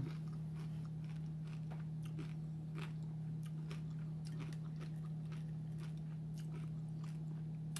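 Close-up chewing of a crispy fried seafood egg roll: scattered soft crunches and mouth clicks, over a steady low hum.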